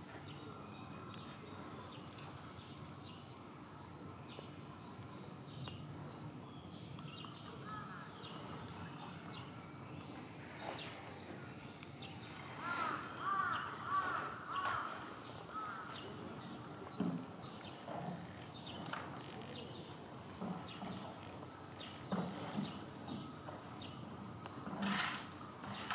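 Outdoor ambience with a steady background hum and birds calling. A rapid high-pitched run of notes comes three times, and a louder string of short calls comes near the middle. A few sharp knocks come later on, the loudest near the end.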